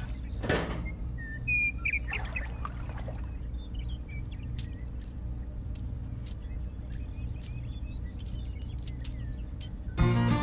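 Small metal parts of a miniature plow hitch clicking as they are fitted to a toy tractor by hand: a series of sharp, light clicks through the second half, over a steady low hum. A couple of short chirps sound early on.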